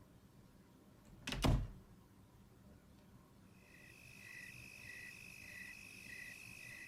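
A single knock about a second and a half in, then an electronic emergency alarm starts: a steady high tone with a beep pulsing just under twice a second.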